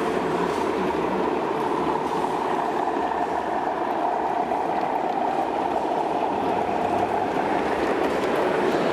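Model diesel locomotive with a train of tank wagons running past on model railway track: a steady running hum and rumble of motor and wheels on rail, growing a little louder near the end.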